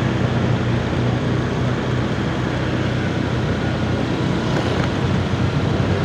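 Motorcycle engine running steadily while riding at street speed, with wind and road noise on the microphone.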